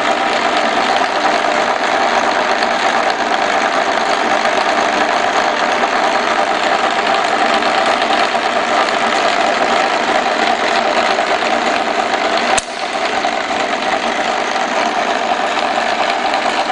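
TV-6 school metal lathe running steadily with the carriage on power feed, a continuous mechanical whir of the gear train and feed drive. A sharp click about twelve and a half seconds in, with a brief dip in the running noise.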